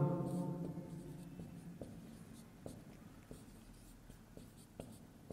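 Faint, scattered scratches and light taps of handwriting in a small room.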